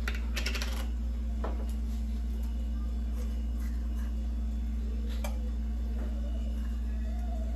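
Light kitchen clicks and taps: a wooden spatula scooping minced garlic from a small glass jar and knocking it into a nonstick frying pan. There is a quick cluster of clicks about half a second in, then single taps near 1.5 s and 5 s, over a steady low hum.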